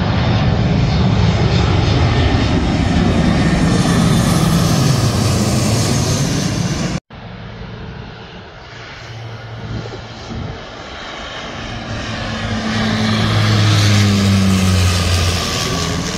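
A twin-engine jet airliner flies low overhead, its engine noise loud and falling in pitch as it passes. After a cut, a twin-engine turboprop approaches with a steady propeller drone that grows louder and drops in pitch as it goes overhead near the end.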